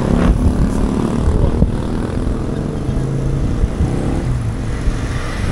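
Motorcycle engine running close by in street traffic, its pitch stepping up and down as it moves past.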